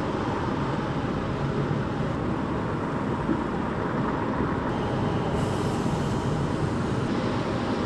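Steady road traffic noise of passing cars and buses.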